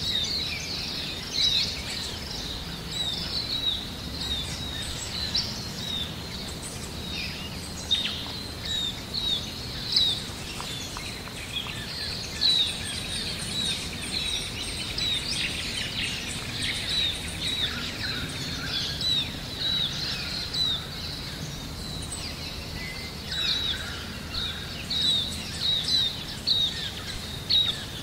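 Small birds chirping: many short, high chirps repeated over and over, over a steady low background noise.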